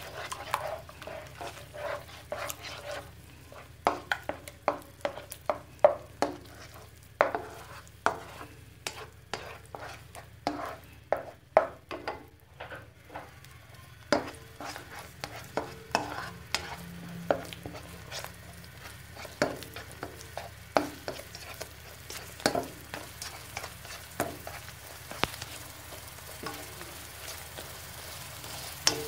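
Slotted spatula repeatedly scraping and tapping against a non-stick wok as two eggs are scrambled in a little hot oil, with a light sizzle of the frying egg. The strokes come irregularly, several a second in flurries, with a short lull about halfway through.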